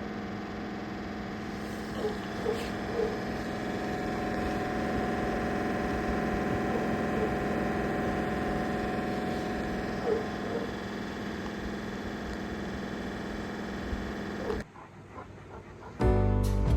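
Steady mechanical hum with several fixed tones, with a few short whines from a Great Pyrenees dog around two to three seconds in and again about ten seconds in. The hum drops out near the end, and music begins just before the end.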